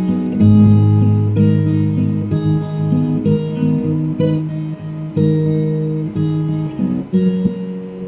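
Acoustic guitar music, plucked and strummed notes in a steady rhythm, that cuts off abruptly at the end.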